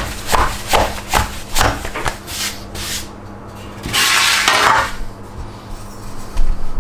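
Hands pressing and patting a ball of very wet pizza dough to push the air out, a run of soft slaps about two to three a second. About four seconds in, a longer rubbing sound of the dough being worked across the surface.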